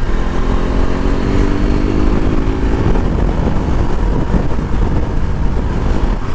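KTM RC 200's single-cylinder engine running as the motorcycle rides along, its note rising gradually over the first couple of seconds, then mostly buried under heavy wind rumble on the microphone.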